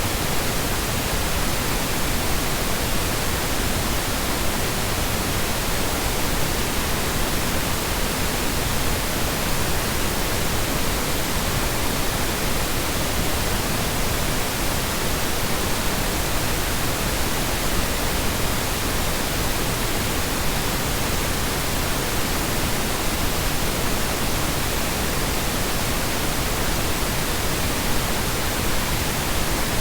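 Continuous synthetic noise: an even, unchanging hiss spread across low and high pitches, with no breaks, tones or sudden sounds.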